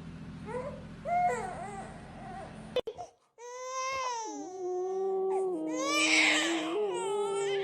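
A high-pitched crying voice, like a baby crying: after a brief silence about three seconds in, long sustained wails that hold a steady pitch. Softer, fainter vocal sounds and a low hum come before the silence.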